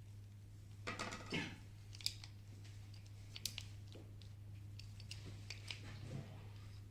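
A cutter scraping and clicking on the plastic outer jacket of a Cat6 network cable as the jacket is stripped off. There is a rough scrape about a second in, then scattered short clicks, over a steady low hum.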